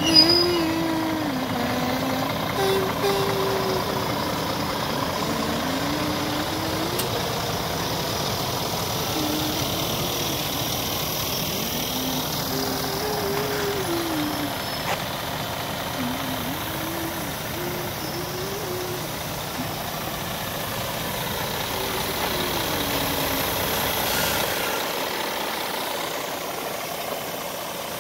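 Scania R410 tractor unit's 13-litre inline-six diesel idling steadily.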